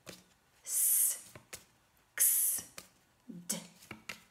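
A woman saying single phonics letter sounds, including two long hissing letter sounds and a short voiced one near the end, with light clicks from flashcards being handled.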